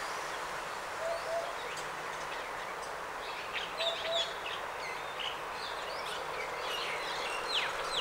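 Eurasian hoopoe singing its soft, low hooting song, two notes at a time: one pair about a second in and another about four seconds in. Other small birds chirp higher and louder over it, with a quick falling whistle near the end, against a steady background hiss.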